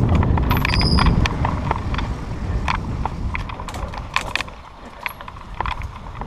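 Mountain bike ridden fast along a dirt singletrack: wind rumble on the microphone and tyres on dirt, with rapid clicks and rattles of the bike over bumps. The rumble eases off after about four seconds, leaving the scattered clicks.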